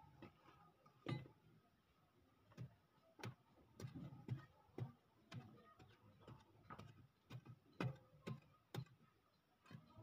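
Faint, irregular clicks and taps of grit and small stones as a hand packs loose earth around a metal pipe in a trench, about a dozen sharp ticks spread unevenly.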